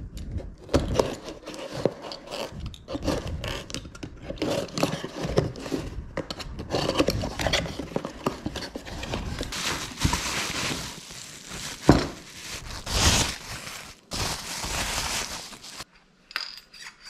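A cardboard box being slit open with a utility knife, its tape and flaps scraping and tearing, then plastic packing wrap crinkling as a new mower deck spindle is unwrapped. The sounds come in irregular bursts and stop abruptly near the end.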